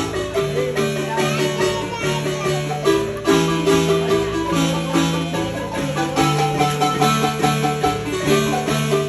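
Guatemalan marimba playing a tune: quick, dense melody notes over a bass line that changes note about once or twice a second.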